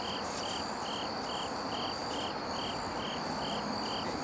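Insects, most likely crickets, chirping. One sings short, evenly spaced high chirps a little over two a second over a steady, higher continuous trill.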